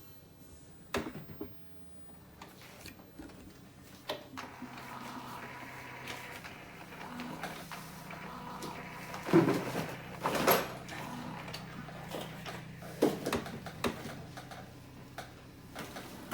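Canon Pro9500 Mark II inkjet printer running its power-on initialization cycle: a couple of clicks, then a motor whirring steadily from about four seconds in, with several louder clunks of the carriage and mechanism in the second half.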